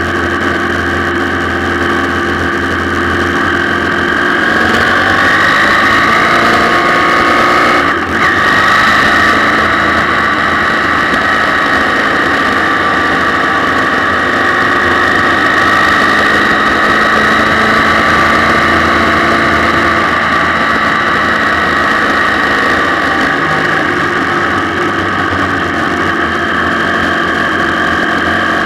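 Motorcycle engine running under way: its pitch rises a few seconds in, drops out briefly about eight seconds in, then holds steady.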